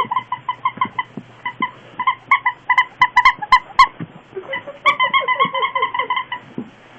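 An electronic pet toy chirping in a fast, even run of short beeps at one pitch, about six a second. There are a few sharp clicks about midway and a short break just after.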